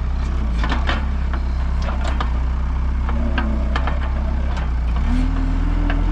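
Heavy farm machinery engine running steadily, a loud low drone with a higher tone that rises and falls and scattered knocks and clanks through it.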